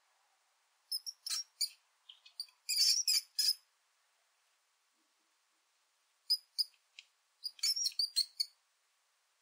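Mouse squeaking sound effect: quick, high-pitched squeaks in two flurries, one starting about a second in and another after about six seconds, with dead silence between.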